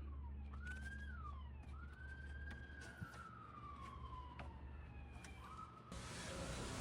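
Faint wailing tone that rises and falls in pitch several times, like a siren, over a steady low hum; a few light clicks, and a rustling noise starts near the end.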